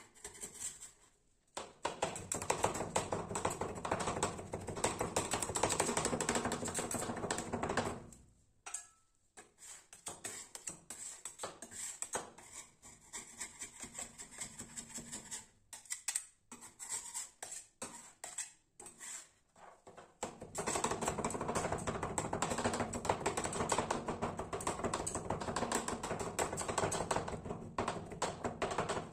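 Metal spatulas chopping and scraping an ice cream base on a frozen steel cold plate, in rapid clicking strokes. Two long stretches of fast chopping, one starting about two seconds in and one from about twenty seconds in, with slower taps and scrapes between them as the mixture is spread.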